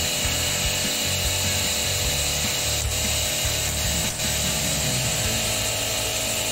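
High-pressure washer running steadily, spraying through a lance with a green spray tip at about 70 bar: a steady hiss of the water jet over a constant motor and pump hum.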